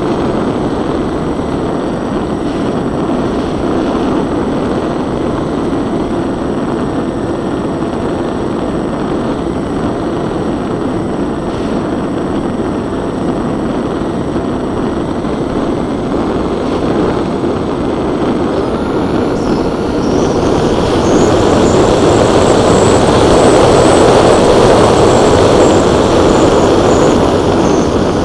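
Onboard sound of a twin-motor RC plane in flight: a steady rush of propeller and wind noise. About twenty seconds in it grows louder, and a high motor whine rises and then eases back down.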